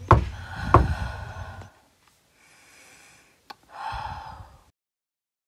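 Two sharp knocks on a front door, about two-thirds of a second apart. A few seconds later there is a brief click and a softer, muffled sound.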